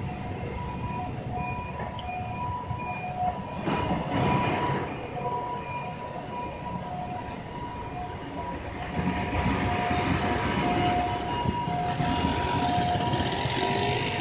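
City street traffic of motor scooters and cars at an intersection, with a repeating pattern of electronic beeping tones at a few pitches playing throughout. The traffic grows louder about nine seconds in as the scooters pull away.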